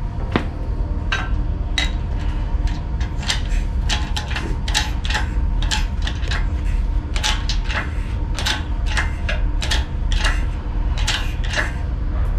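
Hand tools and metal car parts clicking and clinking at an irregular pace, about two to four sharp clicks a second, over a steady low rumble.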